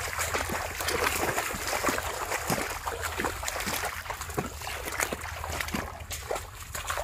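Shallow muddy water sloshing and splashing as hands and legs move through it, many small irregular splashes.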